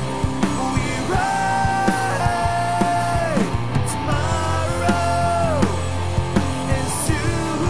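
Rock song on the soundtrack: long sung vocal notes that slide down at their ends, over a full band with a steady beat.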